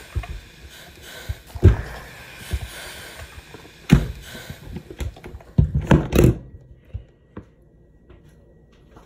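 Knocks and thumps of a clothes iron being pressed on bread and a work boot being handled: single sharp knocks about two and four seconds in, then a quick run of thumps past the middle. A faint steady hiss underneath fades out after the middle.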